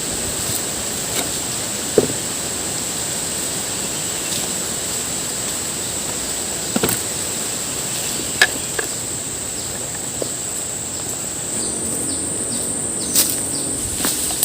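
Steady high-pitched drone of forest insects, with a handful of sharp knocks or snaps scattered through.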